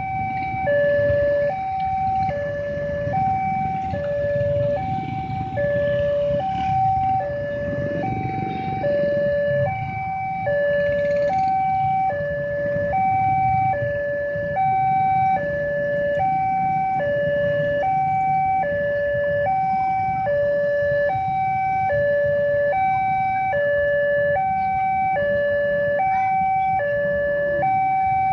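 Electronic two-tone warning alarm of a railway level crossing, sounding from the loudspeaker on the signal mast. It alternates steadily between a high and a low tone, each a little under a second long, and signals a train approaching while the barriers are down. A low rumble of waiting vehicle engines runs underneath.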